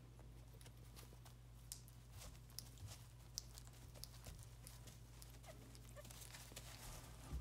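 Faint scattered clicks and patter of miniature schnauzer puppies' paws as they move about on a puppy pad, over a steady low room hum.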